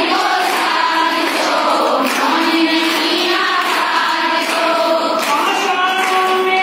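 A group of women singing together in unison, a song made of long held notes that step from one pitch to the next.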